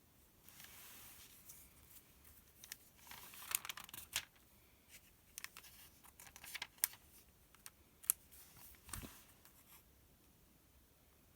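Pages of a paper sales circular being turned and handled: a soft swish, then crinkling and rustling with scattered sharp crackles and clicks, and another swish near the end.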